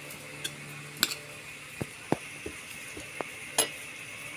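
About half a dozen irregular light clicks and taps from a metal spoon as diced vegetable filling is spooned onto a thin wrapper on a wooden chopping board.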